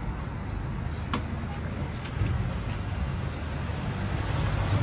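Steady low background rumble, with a light click about a second in.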